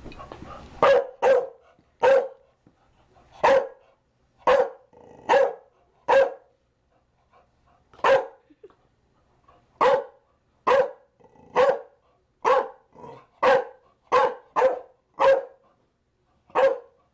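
Chow Chow barking: a long series of single, sharp barks at uneven intervals, about seventeen in all, starting about a second in.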